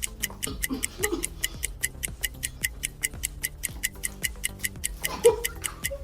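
A countdown timer ticking quickly and steadily, clock-style, over a low steady music bed.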